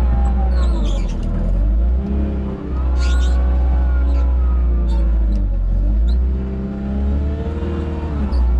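Farm tractor's diesel engine working hard under load, its pitch dipping and rising several times as it pushes and lifts fallen trees. A few short high creaks are heard.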